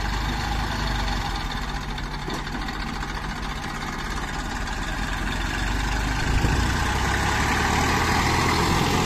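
A heavy machine's diesel engine running steadily and growing louder in the last few seconds. The sound starts and cuts off suddenly.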